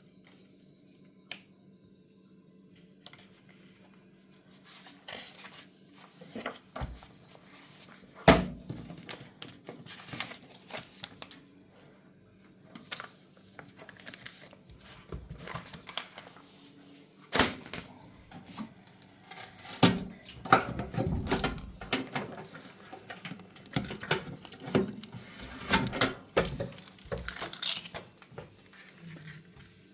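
Hands handling packaging and parts: rustling and crinkling with scattered clicks and knocks, the sharpest about 8, 17 and 20 seconds in.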